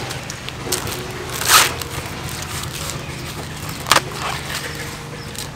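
Green husks being torn off an ear of fresh corn by hand: two loud ripping tears, about a second and a half in and again near four seconds, with softer crackling and rustling of the husk leaves between, over a steady low hum.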